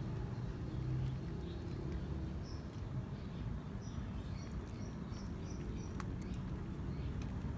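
Stray cat crunching dry kibble over a steady low outdoor rumble, with faint high bird chirps and one sharp click about six seconds in.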